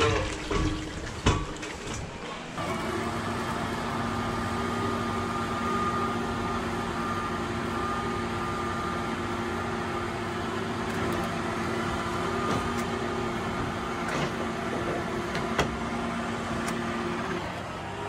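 Steady mechanical hum inside a farm machine's cab, with a low drone and a fainter higher whine held level; it drops off shortly before the end. Before it, in the first two seconds, a few sharp knocks.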